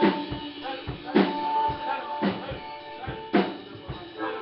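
Live blues-rock band playing: drum kit with a strong hit about once a second under held guitar notes.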